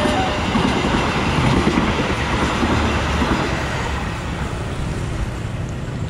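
Passenger train running through a level crossing, its wheels clattering over the rails, the sound slowly dying away as the last carriages clear the crossing.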